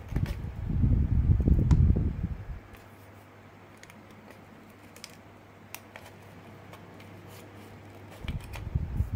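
Low rumbling handling and friction noise from gripping a plastic toy while a small screwdriver turns the screw of its battery cover. It comes in two stretches, in the first couple of seconds and again near the end, with a few faint clicks between.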